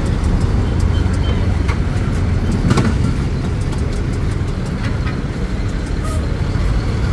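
Steady rumble of road traffic and vehicle engines on a busy street, with a few short clicks and a knock about three seconds in.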